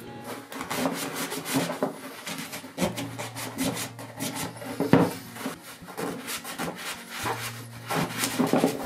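Close-up scrubbing and wiping on the cast-iron body of a Stanley No. 1 hand plane: a small brush, then a paper towel, rubbing off old black finish softened by paint stripper, in short irregular strokes with one louder scrape about halfway through.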